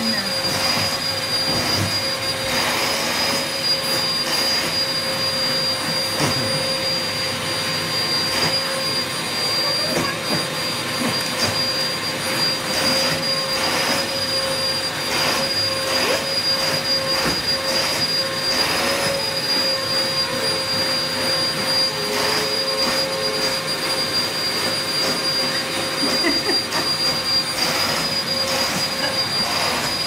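Vacuum cleaner running steadily with a high, even whine over its rushing air noise, its hose nozzle drawn over a cat's fur, giving irregular scratchy strokes.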